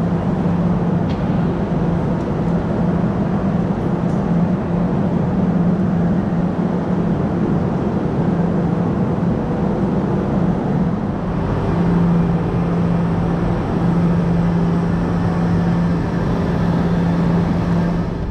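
Steady mechanical hum and rumble of a high-speed train standing at the station platform, with a constant low drone throughout.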